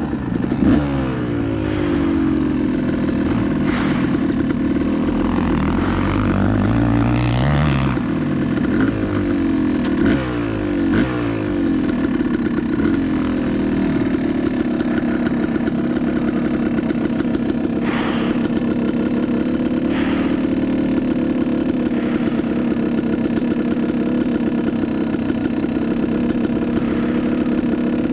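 Yamaha YZ250X single-cylinder two-stroke dirt bike engine revving up and down through the throttle for the first half, then settling to a steady note, with a few sharp knocks along the way.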